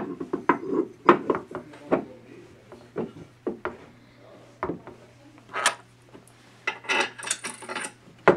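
Metal pole-arm fitting of an LED street light being handled and fitted onto the lamp housing: a series of light knocks and clicks of metal parts, with a few short scraping rubs in the second half.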